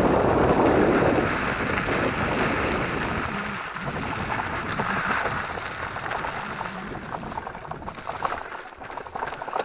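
Ride noise from an electric mountain bike on a sandy, stony wash: a rushing of wind and tyres, loudest in the first few seconds and easing after. In the last couple of seconds sharp rattles and knocks come in as the bike crosses rougher, rockier ground.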